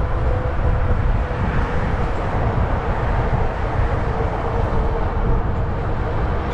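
Steady wind rumble across the microphone and tyre noise from a fat-tyre e-bike riding along a smooth trail, with a faint steady hum.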